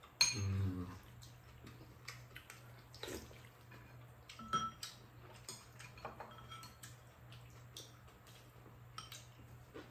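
Metal spoons and chopsticks clinking and scraping against ceramic rice bowls during a meal: scattered light clicks, a few of them ringing briefly. There is a short low murmur of voice just after the start.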